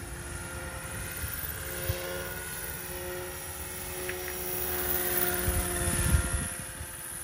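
Roban EC145 800-size scale RC helicopter in flight: a steady rotor hum with a whine over it. It grows louder as the helicopter comes closer about five to six seconds in, with a few low thumps at the loudest point.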